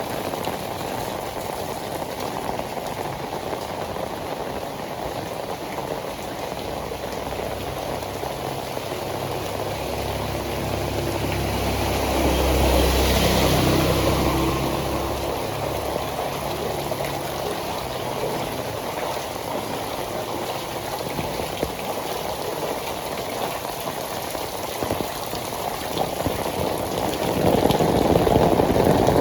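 Heavy tropical rain falling steadily on pavement. About a third of the way in, a vehicle passes, its engine hum and wet-road noise swelling and fading over a few seconds, and near the end the rain noise briefly swells louder.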